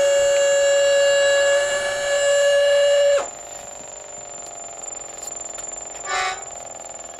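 Melodica holding a long sustained chord that cuts off abruptly about three seconds in. After it a thin, steady high tone remains, and a short, soft burst of sound comes about six seconds in.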